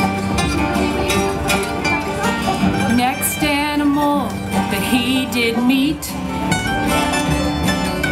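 Bluegrass band playing an instrumental break on acoustic guitars, mandolin and upright bass, with a few sliding notes in the middle.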